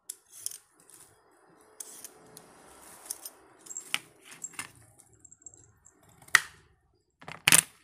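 Handling noise around a tray of vegetables: a plastic bag crinkling, with scattered clicks and several sharp knocks. The loudest is a double knock near the end.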